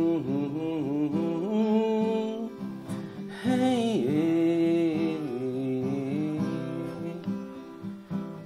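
A man singing an Assamese song in long, held notes to his own strummed acoustic guitar.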